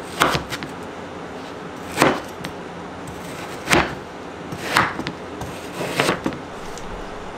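Large kitchen knife chopping through a slab of frozen protein-yogurt bark and knocking on the wooden cutting board: five sharp cuts, one to two seconds apart.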